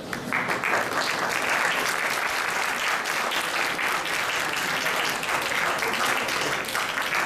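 Audience applauding, starting a moment in and keeping up steadily.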